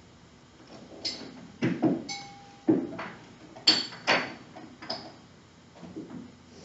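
Irregular knocks and clicks in a room, about eight over a few seconds, the loudest in the middle, with a brief short tone about two seconds in.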